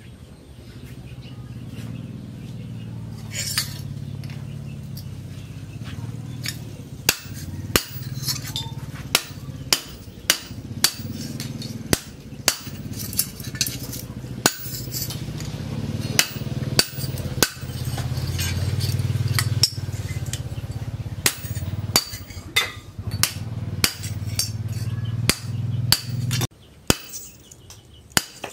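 Sharp metal-on-metal strikes on a steel anvil, irregular, about one or two a second, over a steady low hum that cuts off suddenly near the end.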